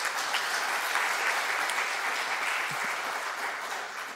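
Audience applauding, steady, then dying away near the end.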